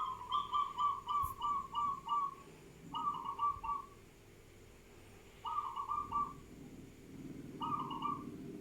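A kacor bird calling: a run of about eight quick whistled notes, then three shorter runs of three or four notes each, with brief pauses between the runs.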